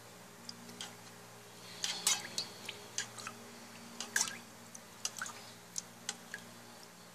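Water spooned onto slime in a bowl: scattered small drips, splashes and spoon ticks at irregular intervals, over a low steady hum.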